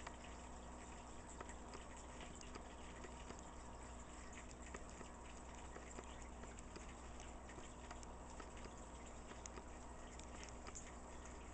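Faint steady bubbling and trickling of aquarium water, full of tiny crackles, over a low steady hum.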